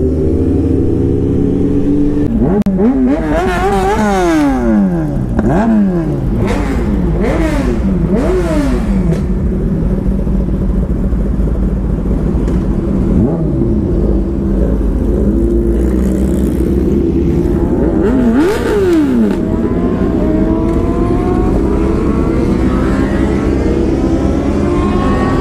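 Sport motorcycle engines accelerating hard, their pitch climbing and dropping sharply several times in quick succession, over a steady engine drone and wind rush.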